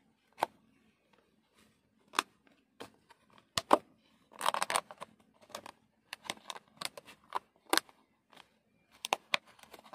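A thin clear plastic food tub being handled and its lid worked off. Flexing plastic gives scattered sharp clicks and crackles, busiest about four to six seconds in.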